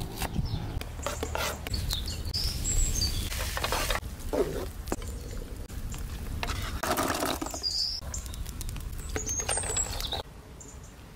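Outdoor cooking sounds: a knife cutting onions on a plastic cutting board with short clicks, then food being handled in a metal pan and a spoon working in a pot of chestnuts. Small birds chirp a few times in the background.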